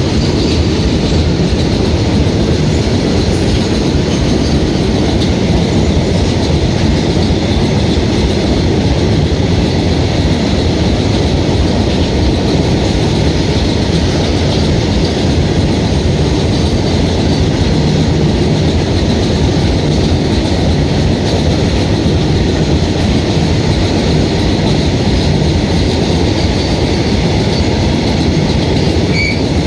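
Freight train rolling past at speed behind twin WAG-7 electric locomotives: a loud, steady rumble and clatter of wagon wheels on the rails, with no let-up.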